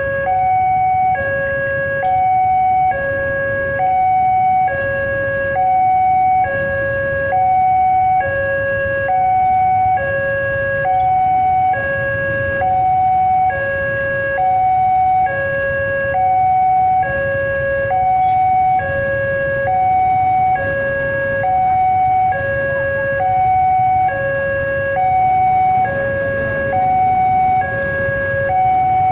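Railway level-crossing warning alarm sounding continuously: a two-tone electronic signal alternating between a high and a low tone about once a second. Idling motorcycle engines rumble underneath.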